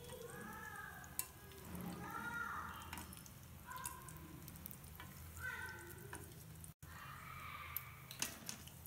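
Oil sizzling faintly as pieces of dough deep-fry in a steel kadai. A wire mesh skimmer gives a few light clinks against the pan as it stirs and lifts the fried pieces out of the oil.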